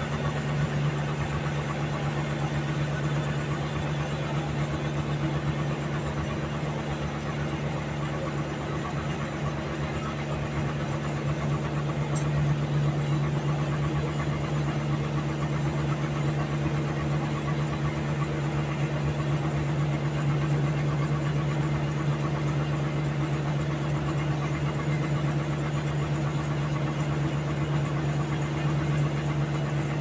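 Large band sawmill running with a steady low hum as its vertical band blade saws through a giant log.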